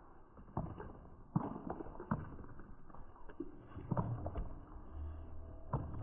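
Heifers' hooves thudding on packed dirt as they walk past, about six irregular footfalls. A low hum starts about five seconds in.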